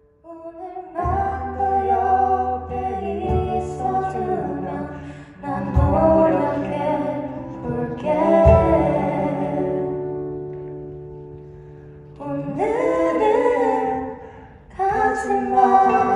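Live singing of a Korean pop ballad with accompaniment: several sung phrases with held notes over sustained low tones, closing the song.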